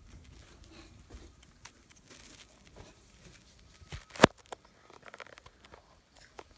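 Faint rustling and scattered light taps of a phone being handled and carried about, with one sharp click about four seconds in.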